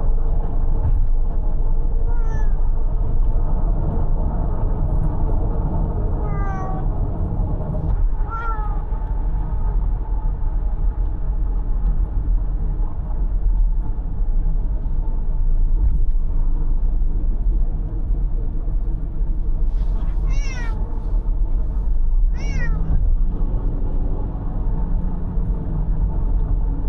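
A domestic cat meowing inside a moving car, about six meows with a long gap in the middle, each falling in pitch. Under them runs the steady low rumble of road and engine noise.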